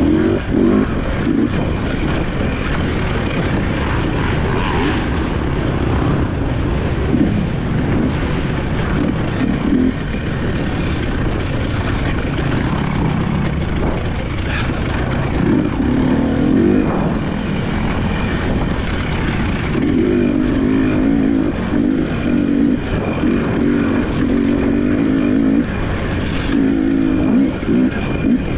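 Dirt bike engines running and revving up and down, the throttle opening and closing repeatedly, with stretches of choppy, pulsing engine note in the second half.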